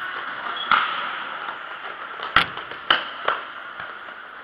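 A futsal ball struck hard four times, the loudest strike about two and a half seconds in, with sharp smacks that ring briefly in the hall, over a steady background hum of the court.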